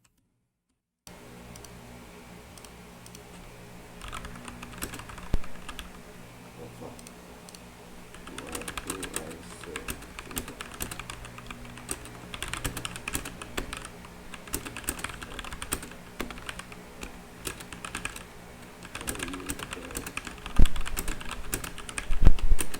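Typing on a MageGee MK1 tenkeyless mechanical keyboard with red linear switches: fast runs of key clicks in bursts, with a couple of heavier thumps near the end. The switches are quieter than clicky blue ones.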